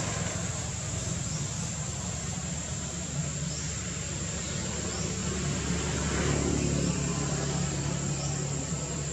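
Outdoor ambience: a steady high-pitched insect drone over the low rumble of road traffic, which swells about six seconds in as a vehicle goes by.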